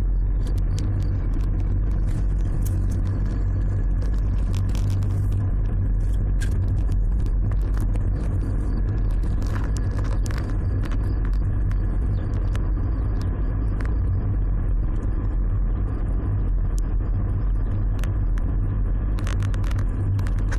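Steady low rumble of a car's engine and tyres, heard from inside the cabin while driving slowly, with scattered small clicks and rattles throughout.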